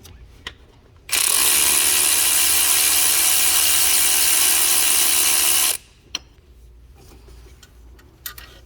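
Cordless electric ratchet with a 13 mm deep socket, spinning out an alternator mounting bolt. It runs in one steady burst of about five seconds that starts about a second in and cuts off sharply, with a few light tool clicks after.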